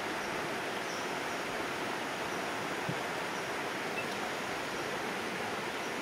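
A steady, even rushing hiss with no distinct events in it.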